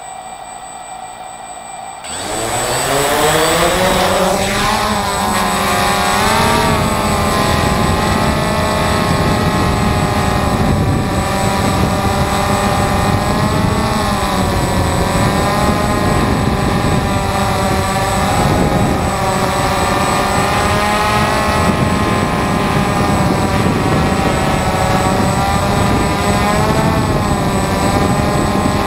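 DJI Phantom FC40 quadcopter's motors and 9-inch propellers spinning up about two seconds in, rising in pitch, then a steady loud whirring buzz as it takes off and climbs, the pitch wavering as the motors adjust. Heard close up, from the camera mounted under the drone.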